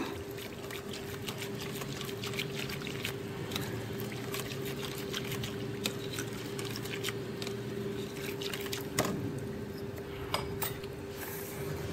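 Wire whisk stirring a thin rice flour and tapioca starch batter in a glass bowl: wet swishing and sloshing with many quick, irregular light clicks, over a steady background hum.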